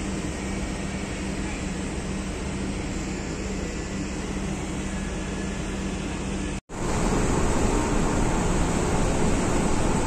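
Steady machinery hum and rushing noise heard from a ship's deck, with a low drone under it. It cuts out for an instant about two-thirds of the way through, then returns louder and deeper.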